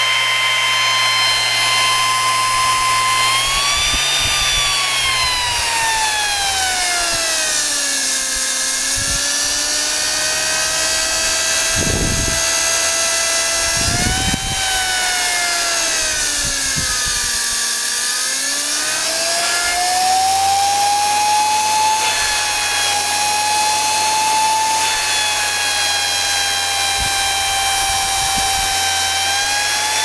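Vacuum cleaner motor converted into a siren, its slotted shroud chopping the impeller's air, giving a loud siren wail. The pitch follows the motor speed set on a variac: steady at first, then falling over a few seconds, rising a little, dipping again, and climbing back to hold before rising near the end.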